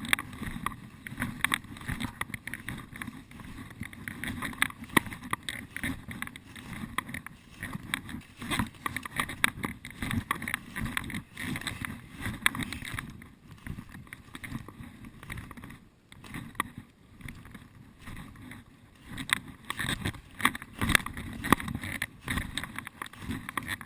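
Footsteps and rustling of someone walking through leaves and undergrowth in woodland, in an irregular patter of crunches and brushing that eases off for a few seconds midway and picks up again near the end.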